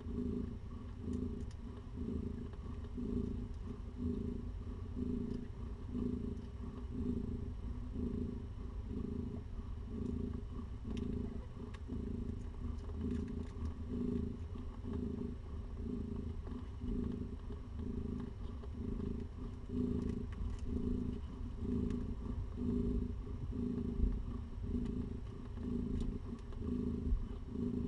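Domestic cat purring steadily and close up, in an even rhythm of about one and a half pulses a second, over a low steady hum.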